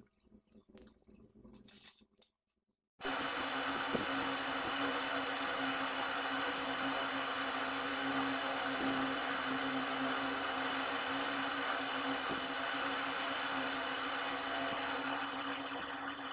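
A steady machine whir with a constant low hum starts suddenly about three seconds in and runs on evenly. Before it there are only a few faint light clicks.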